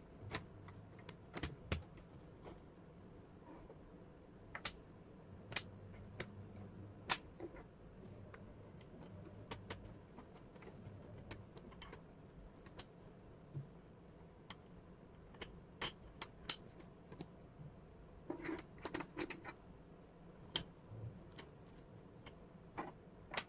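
Wooden jigsaw puzzle pieces clicking and tapping against each other and the tabletop as they are handled and fitted into place. Sparse, irregular sharp clicks, with a quick run of several about three quarters of the way through.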